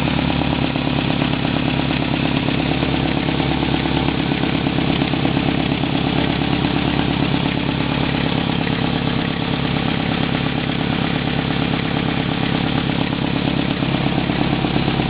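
Nissan 240SX's freshly swapped engine idling steadily, its note shifting slightly near the end.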